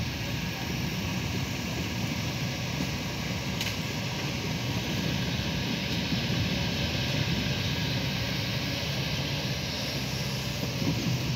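Kobelco hydraulic crawler excavator's diesel engine running steadily under load while it carries a tree stump in its bucket and moves on its tracks, with a single sharp click a few seconds in.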